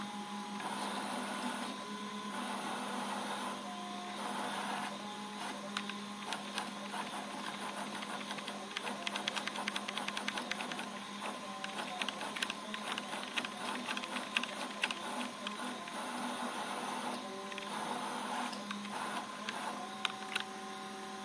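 Servo motors on a CNC router gantry, driven by GeckoDrive G320X servo drives, whining quietly as the machine jogs: short tones that shift pitch as each move starts and stops, over a steady low hum. In the middle there is a stretch of rapid ticking and rattling from the moving axes.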